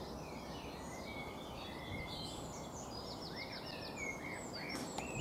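Several small birds chirping and whistling over a steady low background noise, with a quick trill of short notes about three seconds in.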